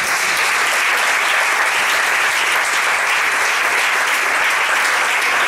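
Audience applauding: many people clapping at once in a loud, steady, dense applause.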